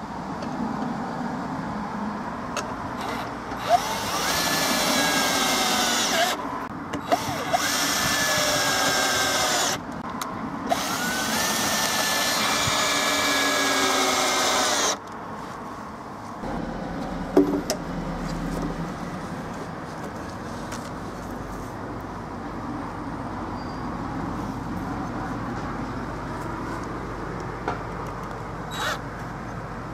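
Cordless drill driving screws through a wooden board into the end of a log, in three runs of a few seconds each, its motor whine rising in pitch as each run starts. After the third run it goes quieter, with a low hum and a few clicks.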